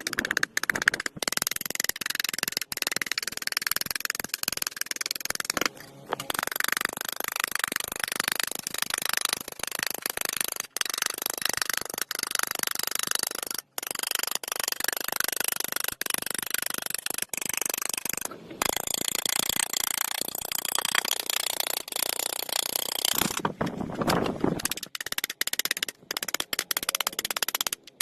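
Dense, rapid scraping and clicking of hand tools at work, mechanical and noisy, with several brief dropouts and a heavier, deeper stretch about three quarters of the way through.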